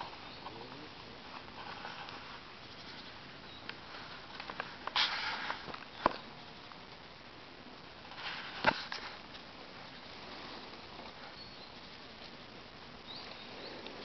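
Footsteps rustling through dry fallen leaves and twigs on a forest floor. There are two bursts, one midway and one a few seconds later, each with a sharp snap.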